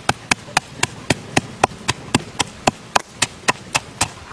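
Pestle pounding chilies, garlic and coarse salt in a clay mortar: a steady run of sharp knocks, about four strokes a second.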